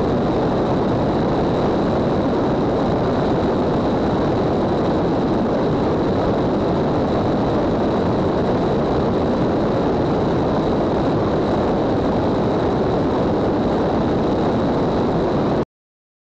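Light propeller airplane in climbing flight heard from a camera mounted outside the aircraft: a steady rush of wind and engine noise with a faint, thin high whine. It cuts off suddenly shortly before the end.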